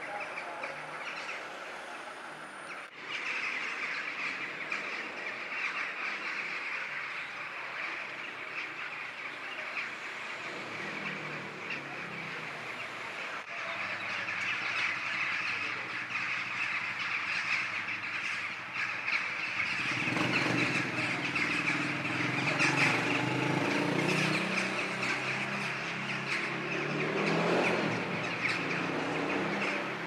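A large flock of birds calling together in a dense, continuous chatter as they gather at dusk before roosting. About two-thirds of the way in, a lower rumble joins underneath.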